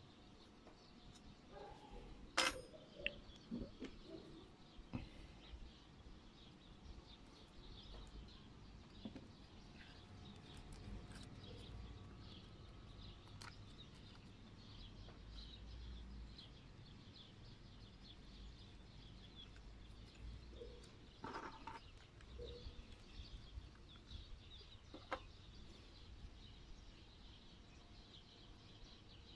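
Faint bird chirping in the background, with a few sharp clicks from the piston rings and tools being handled; the loudest click comes about two seconds in.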